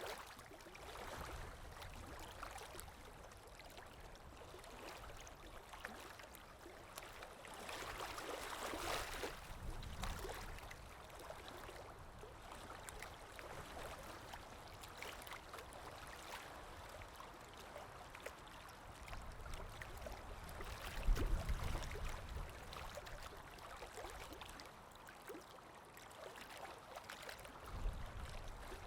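Sea waves washing in and out without pause, swelling about eight to ten seconds in, with deep surges about twenty-one seconds in and again near the end.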